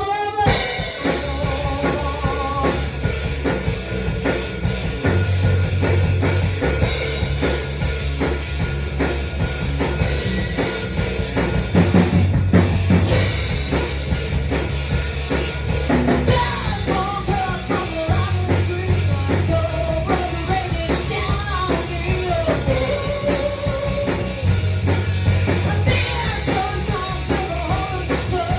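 A band playing a song live: a drum kit keeping a steady beat over a repeating bass line, with a voice singing the melody in the second half.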